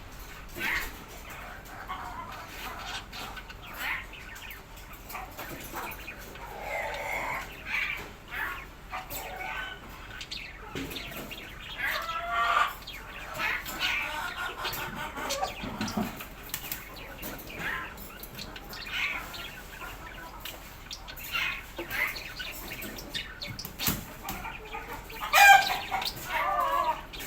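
Birds calling: short calls and clucks scattered throughout, with a louder burst of calls near the end.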